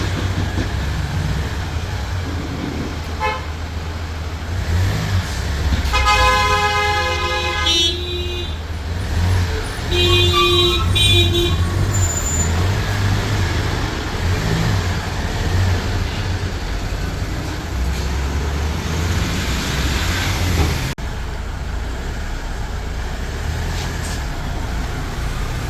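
Road traffic running past with a steady rumble, and vehicle horns honking twice: a long blast about six seconds in and a shorter, broken one around ten seconds in.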